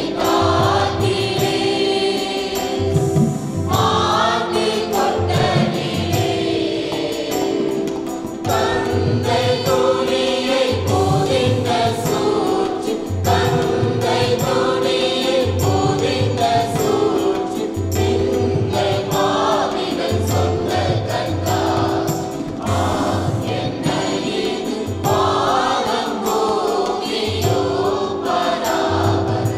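Church choir of women and men singing a Tamil bhajan together, with held accompanying notes and a regular low beat under the voices.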